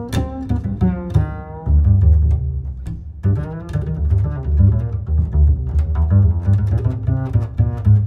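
Background instrumental music with a deep bass line and plucked string notes.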